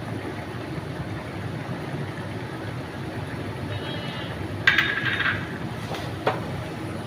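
A metal spoon clinks and rings against the cooking pot about five seconds in, followed by a sharper tick a moment later, over a steady low background noise.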